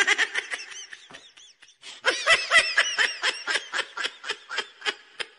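A person laughing: a short bout of giggling, a pause of about a second, then a longer run of quick ha-ha bursts, several a second, that fades out near the end.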